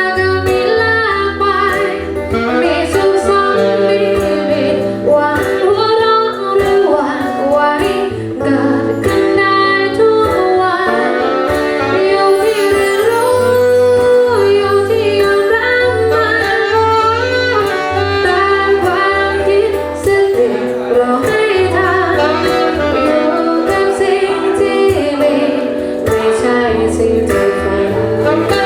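A woman singing a song with guitar accompaniment and a low bass line, performed live by a small band.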